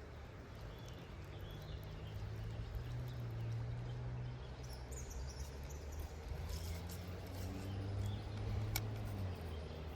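A low droning hum, like a distant motor, swells for several seconds, shifting slightly in pitch, and eases off near the end. Faint high chirps and a single sharp click late on.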